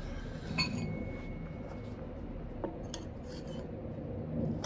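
A few separate light metal clinks and taps, with a short thin ring after one of them, as a steel pry tool is handled and set against the output flange of a car differential's cast housing.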